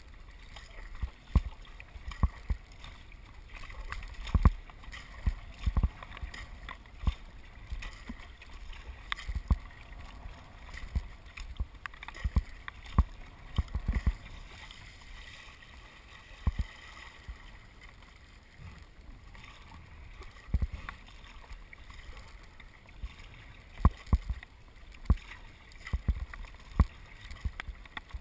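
Kayak being paddled on the sea: water splashing and sloshing against the hull, with irregular low thumps every second or so.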